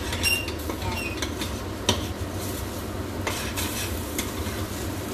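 A spoon stirring and scraping beaten eggs and bitter gourd around a frying pan, with irregular knocks of the spoon against the pan (a sharp one about two seconds in), over a light sizzle of frying as the egg scrambles.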